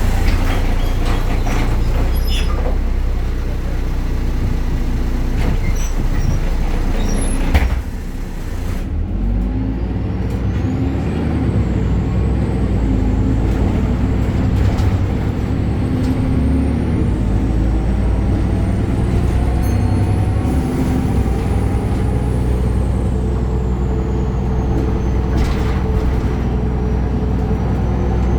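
BredaMenarini Avancity Plus city bus running, its Deutz diesel engine and ZF gearbox giving a steady drone. There is a brief loud knock about seven and a half seconds in, and a thin high whistle that rises and falls from about ten seconds in.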